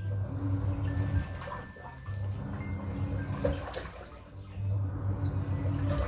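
Samsung Diamond Drum top-loading washing machine in its wash cycle: the pulsator motor hums in three bursts of about a second each, roughly every two and a half seconds, churning clothes through detergent water with a sloshing noise.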